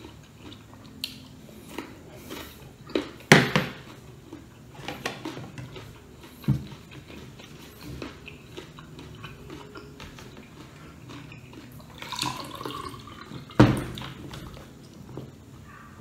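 Close-up eating sounds: chewing crunchy unripe mango and handling things on a tiled table, with a few sharp knocks, the loudest about three seconds in and another near the end.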